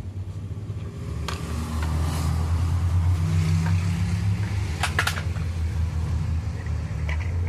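Domestic cat purring close to the microphone: a steady, low, rapidly pulsing rumble that shifts slightly as it breathes in and out, with a couple of light clicks.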